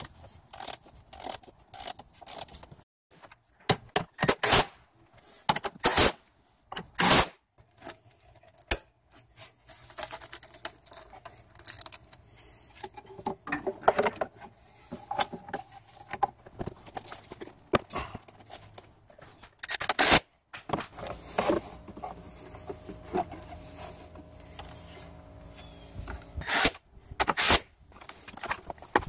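Hand work on plastic and rubber parts under a car's hood: irregular sharp clicks and knocks with scraping and rubbing between them, as connectors, hoses and the air intake duct are handled and fitted.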